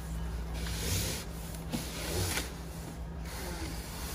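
Flat-pack cardboard furniture boxes scraping and sliding against each other as they are pulled off a stack, in several rough rubbing strokes.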